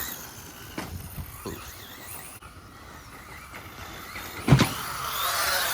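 Traxxas Rustler 2WD RC truck driving: a few light knocks early on, a loud thump about four and a half seconds in, then the electric motor's whine rising and falling in pitch.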